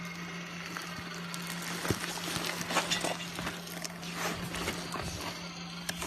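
JIT900 HDPE liner welding machine running with a steady low hum, along with irregular scuffs, crinkles and clicks, likely from the plastic liner being handled and walked on.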